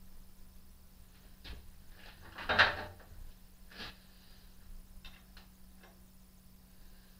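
Steel clamping-kit parts and a wrench knocking and clinking against a milling machine's table as a workpiece is clamped down. There is one loud clunk about two and a half seconds in, with lighter knocks before and after it and a few faint clicks near the end.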